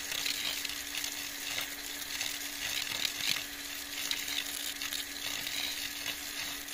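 Water pouring from a hose and splashing onto wet ground in a steady hiss as a newly drilled Abyssinian well is pumped out to open the aquifer, with a steady low hum underneath.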